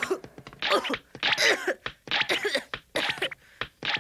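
A cartoon character's voice coughing and hacking in about five short heaves, bringing up swallowed dream bubbles one after another.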